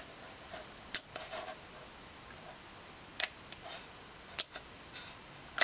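Handling of a metal-cased emergency-stop button: about four sharp, irregular clicks and taps over faint rustling.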